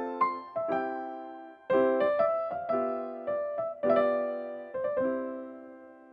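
Background music: a light piano melody of struck notes that ring and die away, the last notes fading out near the end.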